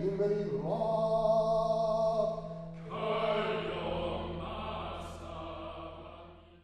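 Closing music of sustained, chant-like choral singing over a steady low drone, in long held chords that change about a second in and again at about three seconds, then fading out at the end.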